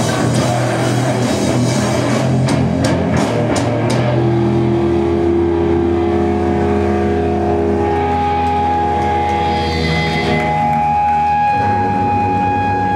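Live rock band playing loud, with drums and distorted electric guitar. About four seconds in, the drums stop and the amplified guitars ring on in long held, droning tones.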